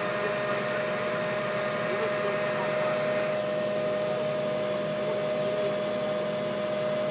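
Grove mobile crane running steadily under load: a constant mechanical hum with a steady high whine.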